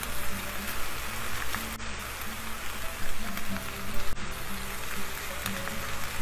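Chopped smoked meats (brisket, pulled pork, chicken and rib meat) sizzling in a hot skillet, an even hiss, under background music with a bass line of short repeated low notes.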